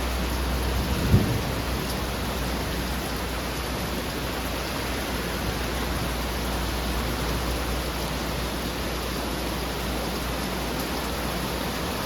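Heavy rain pouring steadily, with a brief low thump about a second in.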